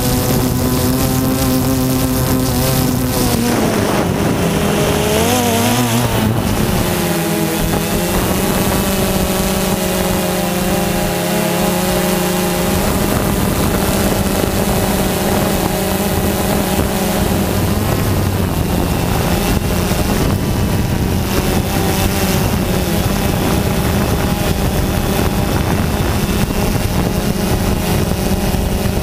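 Drone motors and propellers whining, picked up by the drone's own onboard camera. The pitch drops and wavers a few seconds in, shifts again near the middle and then holds steady, with wind rushing over the microphone during the fast flight.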